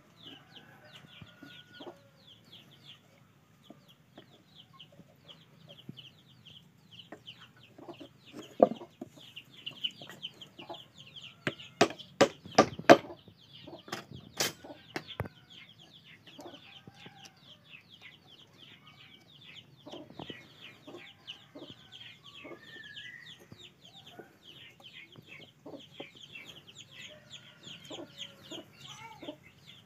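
Chickens peeping and clucking throughout, a fast, continuous stream of short high chirps. About halfway through comes a cluster of sharp knocks from the wooden handle pieces being handled, the loudest sounds.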